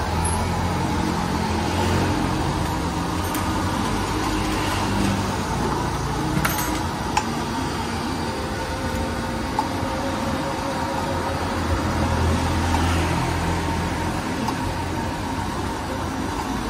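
Steady street traffic noise with a low engine hum that swells and fades, and a couple of brief light clicks partway through.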